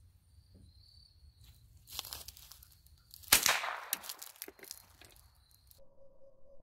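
Two shots from a Walther Hammerli Tac R1 semi-automatic .22 LR rifle, about a second and a half apart, the second louder with a short tail.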